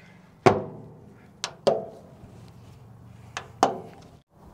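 The heavy steel lid of a Meadow Creek 250-gallon offset smoker shuts with a loud clang that rings briefly. Two pairs of lighter metal knocks follow.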